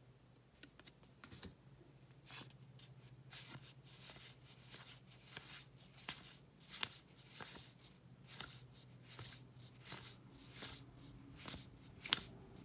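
2018 Topps Heritage baseball cards being slid one by one through a hand-held stack. The result is a string of soft, irregular paper swishes and flicks, a few each second.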